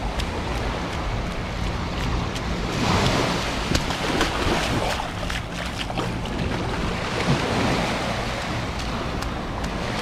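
Small surf waves breaking and washing up the sand, rising to a louder wash about three seconds in, with wind buffeting the microphone.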